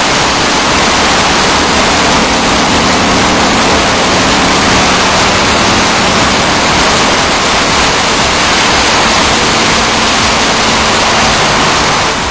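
High-pressure water jets of a touchless automatic car wash spraying, a loud, steady hiss that stops near the end.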